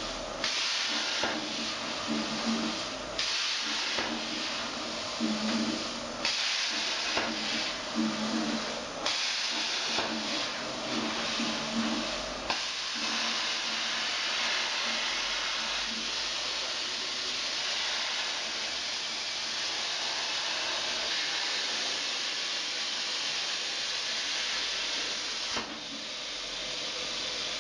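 CNC plasma cutter torch cutting 5 mm aluminium sheet: the plasma arc and its compressed-air jet make a steady, loud hiss. A low hum comes and goes during the first half.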